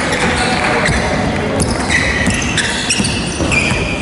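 Indoor basketball game on a hardwood court: the ball bouncing, short high sneaker squeaks, and players' voices, all echoing in a large gym.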